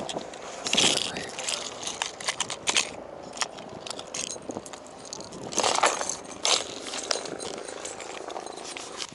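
Clear plastic tackle box and hard-bodied fishing lures being handled: a run of small clicks, rattles and scrapes as lures are picked through and a metal snap is worked, with two louder scrapes, one about a second in and one past the middle.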